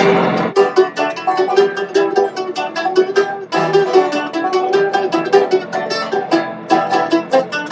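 Soundtrack music: a quick, busy run of short plucked notes.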